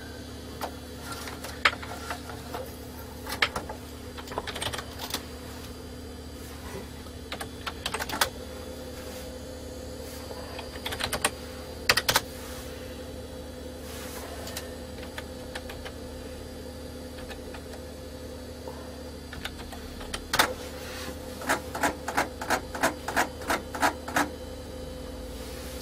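Keystrokes on a PC keyboard typing DOS commands: scattered single clicks, then a quicker run of keystrokes near the end, over a steady low hum.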